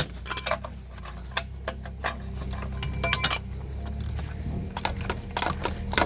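Metal wrench clinking and scraping against the engine's oil filter while it is worked loose, a run of sharp clicks with a few ringing metallic clinks about two to three seconds in. A low steady hum sits underneath.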